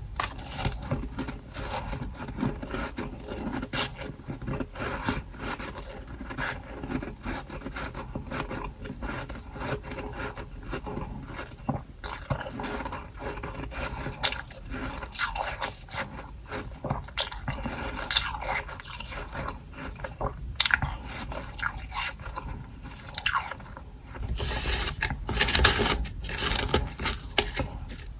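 Close-miked eating of freezer frost from a humidifier: continuous crisp crunching and chewing mixed with scraping. The crunches grow louder and denser about four seconds before the end.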